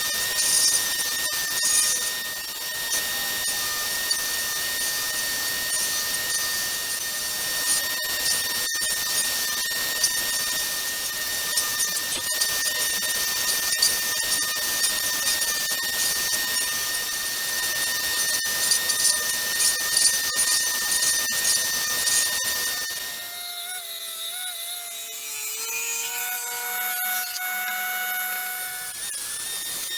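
An electric power tool working wood, running with a steady high whine over a noisy cutting hiss. About 23 seconds in it stops, and gliding melodic tones take over.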